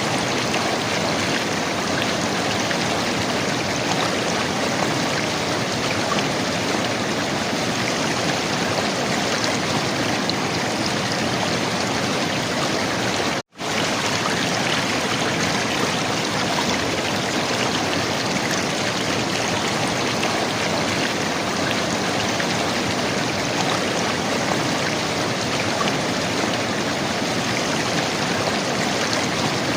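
River water gurgling and rushing steadily. The sound cuts out for an instant about halfway through.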